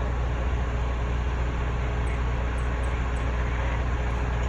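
Fire engine's diesel engine running steadily at idle, a constant low drone.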